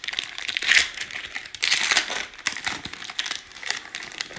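Foil trading-card pack wrapper torn open and crinkled in the hands, a run of irregular crackling rustles that dies down near the end.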